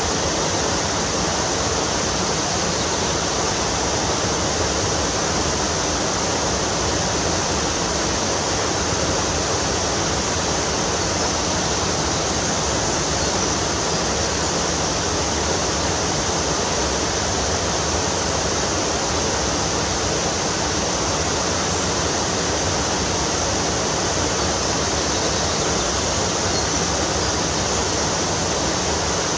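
Steady rush of fast-flowing river or stream water, loud and unbroken.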